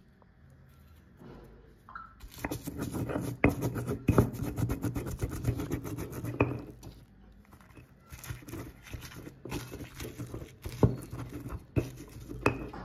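Stone pestle pounding and grinding roasted garlic and green chiles in a volcanic-stone molcajete: rapid knocking and scraping of stone on stone, with a few sharper strikes. It starts about two seconds in and comes in two spells with a short pause about halfway through.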